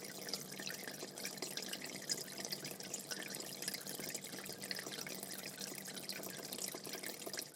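Medium-sized aquarium with water flowing in and making small bubbles at the surface: a steady trickle with many tiny irregular pops and gurgles over a low steady hum.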